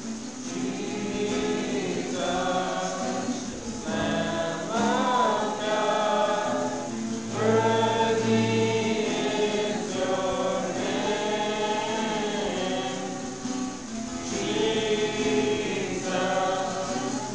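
A group of voices singing a Christian worship song.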